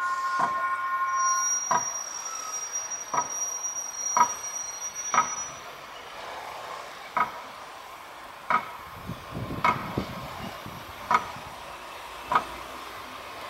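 An arriving train's horn sounds a steady multi-note chord that cuts off about two seconds in, with a thin high squeal for a few seconds after. Short ringing metallic strikes follow at a slow, fairly even pace, about one every second and a quarter.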